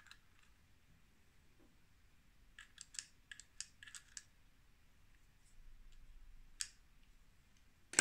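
A quick run of small, sharp clicks from a screwdriver working on the plastic gears and screws of a rotary dial mechanism, then one more click. Near the end comes a louder knock as the screwdriver is laid down on a wooden table.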